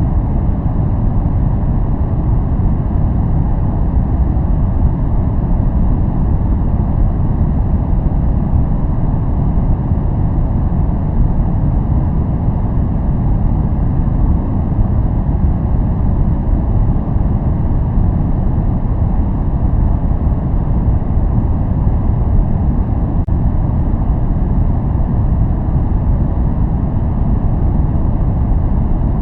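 Continuous noise track played for relaxation and focus, steady and unchanging, heavy in the low end so it sounds like a deep rumble rather than a bright hiss.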